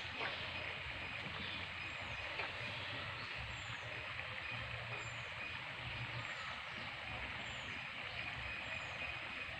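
Steady outdoor hiss with a short, high, falling chirp repeating about once a second, and two faint knocks in the first few seconds.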